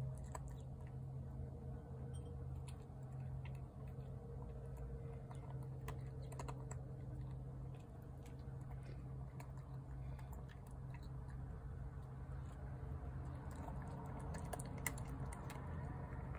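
A cat crunching dry kibble from a ceramic bowl: irregular small crunches and clicks as it chews, over a steady low hum.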